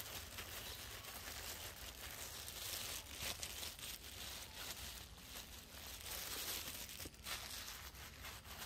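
A macaque eating a ripe mango up close, biting and tearing the soft flesh with a steady run of small crackling, tearing noises.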